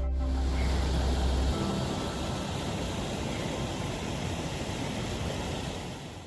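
Rushing water of a river and waterfalls, a steady hiss. A deep rumble under it stops abruptly about a second and a half in, and the sound fades out near the end.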